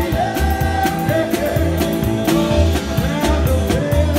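Live band playing an upbeat rock-and-roll song: a steady drum beat with bass and guitars, and a man singing at the microphone.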